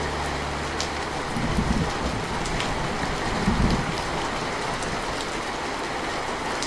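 Steady rain falling, an even hiss with scattered fine drop ticks. Two brief low rumbles come through it, about a second and a half and three and a half seconds in.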